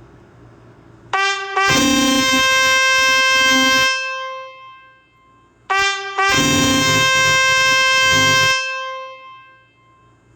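Nokia E5 ringtone: a short pickup into a long held note that fades out, played twice.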